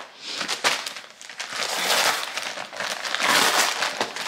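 Packaging crinkling and rustling irregularly as someone rummages through it to pull out an item.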